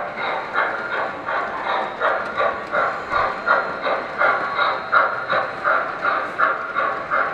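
O-gauge model steam locomotive running on a three-rail track, giving a steady chuffing rhythm of about three beats a second.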